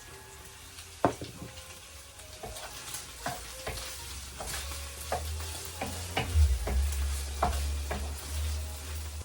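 A spoon stirring ground pork in tomato sauce in a frying pan, knocking and scraping against the pan roughly every half second, over a light sizzle. A low hum joins about halfway through.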